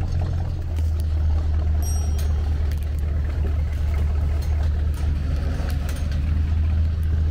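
Diesel engine of a MAN KAT 4x4 truck running steadily at low speed, heard from on its roof, with leaves and branches scraping and snapping against the roof in scattered sharp clicks.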